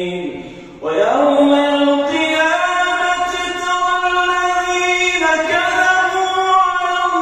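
A male imam chanting Quran recitation in the melodic, drawn-out tajweed style. One phrase trails off, then a new one begins about a second in with a rising glide into long held notes, stepping to a new pitch about five seconds later.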